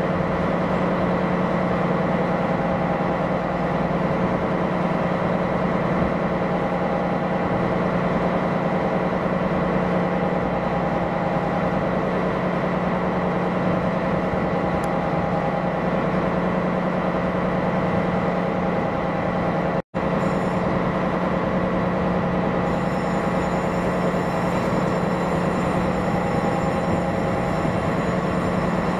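A boat's diesel engine droning steadily with a strong low hum. The drone cuts out for an instant about twenty seconds in.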